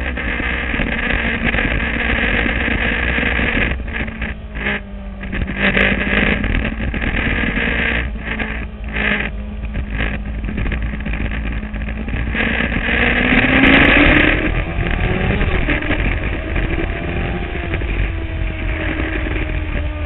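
Sport motorcycle engine running under way, heard close up from the fuel tank; the engine note holds steady, then rises in pitch and grows loudest about thirteen seconds in as the bike accelerates.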